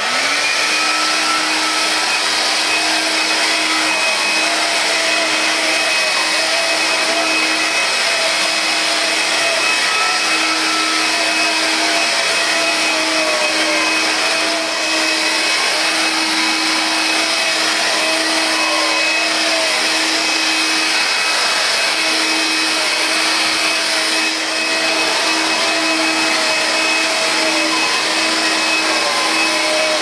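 Vax Air Cordless upright vacuum cleaner running while pushed over carpet: a steady motor whine over a rushing noise, settling at full speed within the first half-second.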